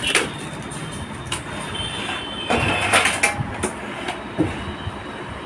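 Metal clinks and scraping from a PC cabinet being handled while nuts are taken off it, with a louder burst of rattling about two and a half to three seconds in, over a steady background noise.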